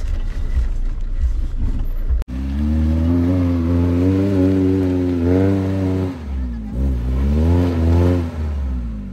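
Maruti Gypsy 4x4's petrol engine revving hard under load while climbing a steep muddy slope, its pitch rising and falling as the throttle is worked. It is heard from inside the cabin at first, then from outside after a sudden cut about two seconds in.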